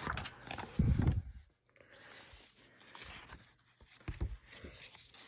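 A picture book's paper page being turned and handled: rustling with scattered clicks, a soft low thump about a second in, and a few light knocks near four seconds.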